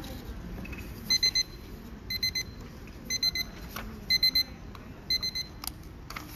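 Round digital countdown timer beeping at zero: five bursts of quick, high-pitched beeps, about one burst a second, signalling the end of a 15-minute timed wait. A single click follows near the end.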